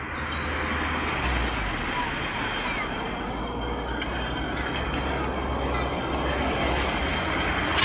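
Metal rollers of a long roller slide rumbling and rattling steadily under riders sliding down, with a few sharper knocks about three seconds in and again near the end.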